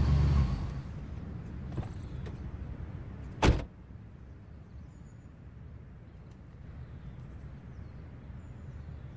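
Low, steady rumble of a car interior, with one short, sharp sound about three and a half seconds in.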